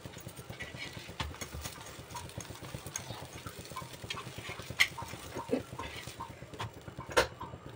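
Steel tongs clicking and knocking against a tawa while a paratha is turned on it, with two sharp clicks, about five seconds in and near the end, over a low steady hum.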